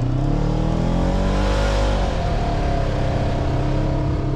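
A side-by-side off-road vehicle's engine revving up over about two seconds, then running steadily at the higher speed.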